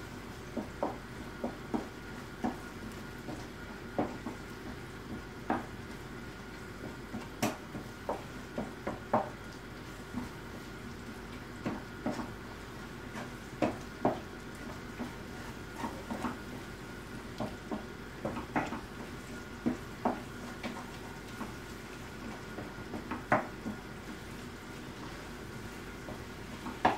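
Wooden spoon stirring fried onions and eggs in a nonstick frying pan: irregular taps and scrapes of the spoon against the pan, about one a second, over a faint steady sizzle of frying.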